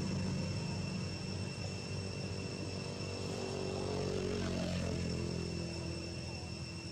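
Steady low engine drone, with a constant high-pitched insect whine over it.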